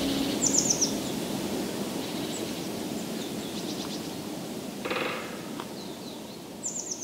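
Forest ambience: a steady soft hiss with birds calling, a quick run of high chirps about half a second in and again near the end, and a brief louder call or sound about five seconds in, the whole slowly fading down.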